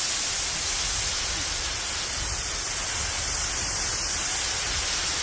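Waterfall close by, its falling water rushing as a steady, even hiss.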